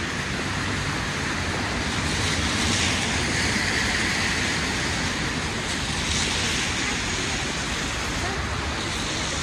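City street traffic: a steady hiss of cars on a wet road, swelling a little about two to four seconds in.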